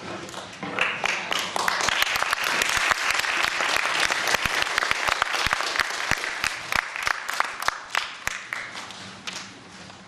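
Audience applauding, swelling up within the first second and thinning out over the last couple of seconds.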